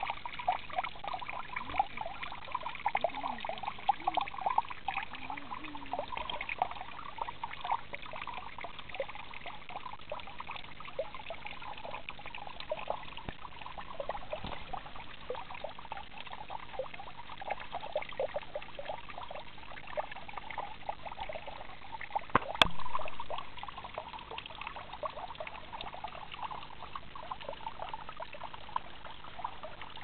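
Small stream trickling and babbling steadily, with one sharp click about three-quarters of the way through.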